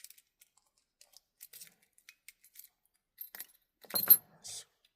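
Metal keys handled and clinking together: scattered small clicks, then a loud, sharp metallic clink with a brief ring about four seconds in, followed by a short scrape.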